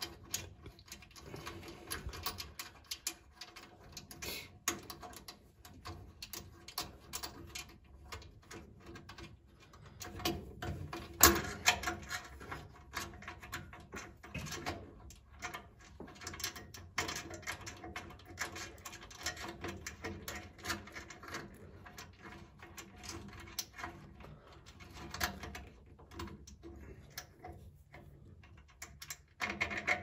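Fingers unscrewing a small nut from a laser cutter's door-alarm proximity sensor and handling the small metal parts: scattered light clicks and rubs, with one louder click about eleven seconds in, over a faint steady hum.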